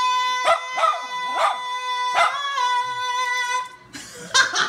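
Miniature schnauzer howling one long steady note, with short yips breaking in over it, and another brief yip near the end.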